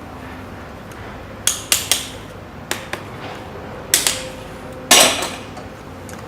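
A handful of sharp metallic clinks and taps, the loudest about five seconds in with a short scrape after it, from metal tools and winding wire being handled while coils are fitted into an electric motor's slots.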